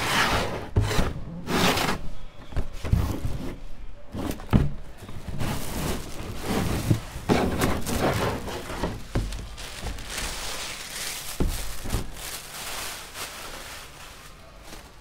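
Cardboard helmet box being opened and handled on a table, with a run of knocks and scrapes. Then the plastic bag around a bicycle helmet crinkles as it is pulled out and unwrapped.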